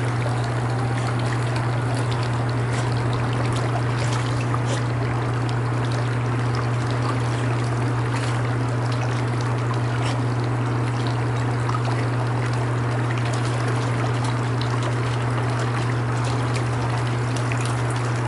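Pool water splashing and trickling as a wet dog climbs out of the pool up the steps, water dripping and running off its fur and life jacket, over a steady low hum.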